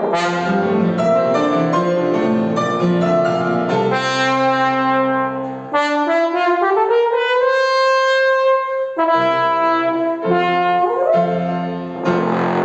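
A brass instrument plays a melody over lower sustained accompanying notes. About six seconds in, it makes a slow, smooth upward glide to a long held note. The lower notes drop out during the glide and come back after it.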